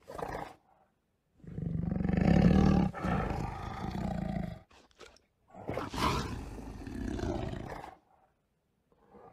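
Tiger roar sound of Google's 3D augmented-reality tiger, heard twice: a long, loud roar of about three seconds, then a second, somewhat quieter one of about two and a half seconds.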